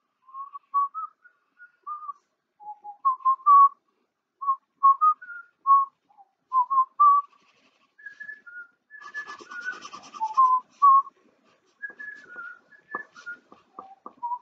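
A man whistling a tune in short notes that step up and down, a little higher in pitch about eight seconds in. Scratching and a few sharp taps of a marker on paper come in about nine seconds in and again near the end.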